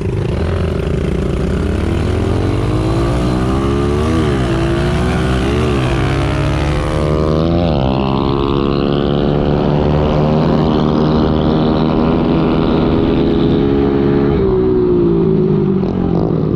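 Small four-stroke pit bike engine at full throttle, heard from on board: its pitch climbs through the gears with three quick dips at the upshifts, holds steady at high revs, then falls near the end as the rider backs off. Wind noise rushes over the microphone.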